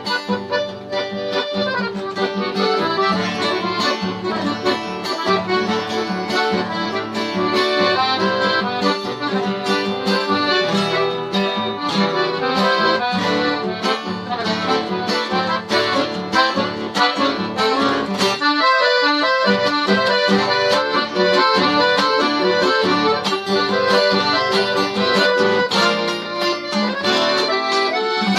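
Accordion playing an instrumental tune, with guitar strummed and plucked beneath it; the melody and rhythm change about two-thirds of the way through.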